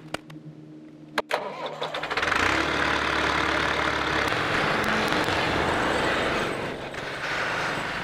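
JCB backhoe loader's diesel engine cold-starting in freezing weather after a night on its block heater. A few clicks, then it catches about two seconds in and runs loud and steady as it warms up.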